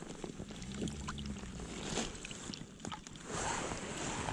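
Shallow lake water splashing and sloshing around the hands as a released pike is let go and kicks away, with a short splash about two seconds in and a longer, louder burst of splashing near the end.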